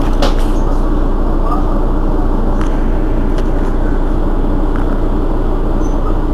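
Rear-mounted diesel engine of a Mercedes-Benz Citaro city bus idling steadily while the bus stands at a stop.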